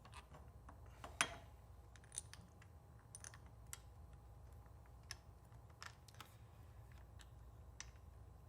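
Faint, irregular clicks and taps of small metal parts being handled: a bicycle handlebar stem's faceplate and its bolts being fitted over the handlebar, with one louder click about a second in.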